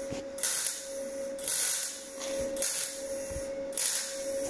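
Bodywork MIG welder tacking a steel repair panel: crackling, hissing bursts of arc about a second long, four in a row with short breaks between, over a steady hum.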